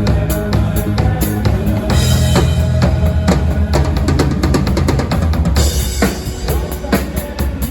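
A live band playing a song at a soundcheck: a drum kit drives a steady beat of kick and snare under held bass notes and electronic backing sounds, with brighter cymbal-like washes about two seconds in and again past the five-second mark.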